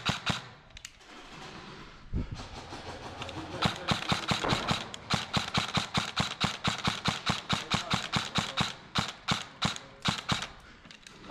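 Airsoft rifles firing rapid strings of shots, about six a second, sharp and echoing in a cinderblock stairwell, with a gap of a few seconds near the start before the firing picks up again.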